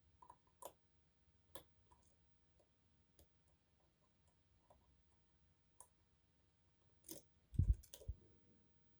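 Faint, scattered small clicks of lock picks and a tension wrench working the pins inside an Adamant spinning-key lock. A few low thumps come near the end.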